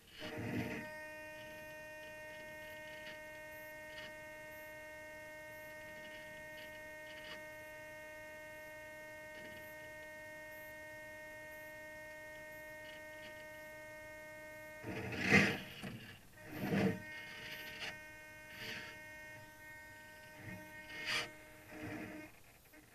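A steady electrical hum with evenly spaced overtones, starting abruptly and cutting off near the end, with a few short knocks partway through.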